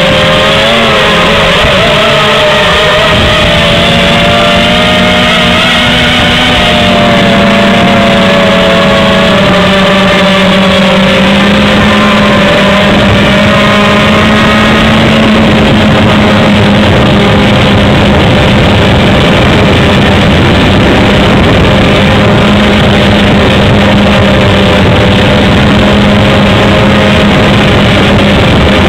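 HobbyKing X230 quadcopter's motors and propellers, picked up by its onboard camera's microphone as a loud, steady whine. The pitch wavers with throttle for the first several seconds, then holds nearly level.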